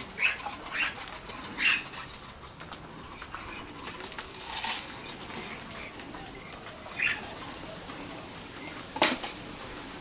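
Corellas giving short, scratchy calls now and then, about six in all with the loudest near the end, over a scatter of faint clicks.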